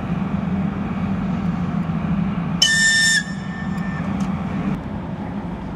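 One short, shrill whistle blast a little past halfway, lasting about half a second with a fainter tail, over a steady low hum.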